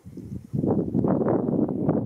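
Shallow water splashing and sloshing in irregular bursts as someone wades and works his hands and a net in it. It gets louder about half a second in.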